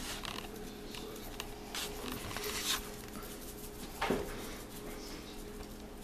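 A bottle of coarse Montreal steak seasoning shaken upside down over strips of raw beef, the seasoning rattling in a few short shakes, the loudest about two and a half seconds in. About four seconds in comes a brief cry that falls in pitch.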